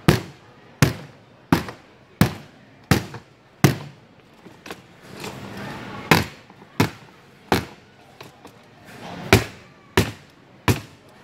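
Heavy blows struck over and over on a hard suitcase in a durability test, about one every 0.7 seconds: a run of six, a pause, then two runs of three.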